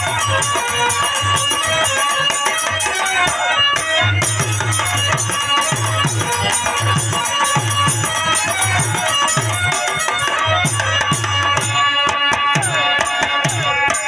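Instrumental interlude of Bhojpuri birha folk music: a sustained melody line over a steady rhythm of low hand-drum beats, with shaken or jingling percussion throughout.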